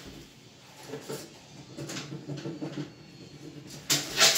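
Soft knocks and rustles of work inside a wooden cabinet, with a louder scraping rush near the end.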